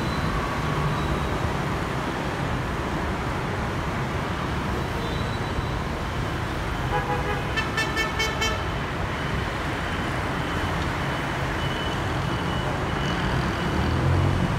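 Steady road-traffic noise from a busy city boulevard, with motorbikes and cars passing. About eight seconds in, a vehicle horn beeps several times in quick succession.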